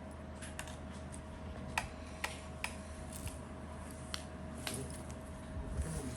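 Scattered light clicks and taps of a screwdriver and small parts being handled on an opened laptop, about eight irregular clicks over a steady faint hum.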